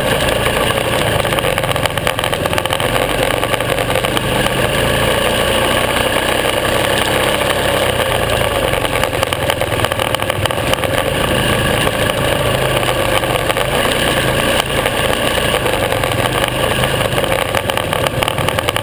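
Supermoto motorcycle engine running steadily while under way, with no clear revving up or down.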